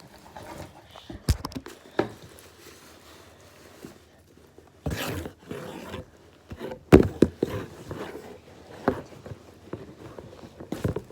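Scattered knocks and taps of small objects being handled, the loudest about seven seconds in, with a short rustle near the middle.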